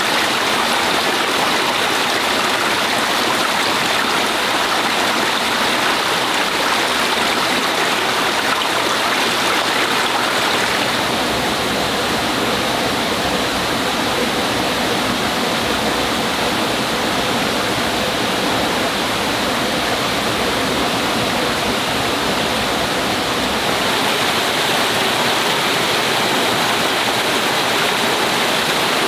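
Rushing stream water: a steady, loud rush with no letup, its tone shifting slightly a couple of times.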